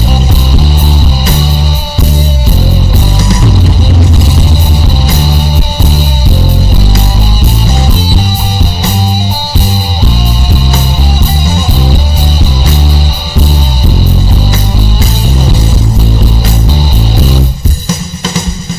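Rock music with electric guitar and heavily boosted bass, its low end dominating, briefly dropping in level near the end.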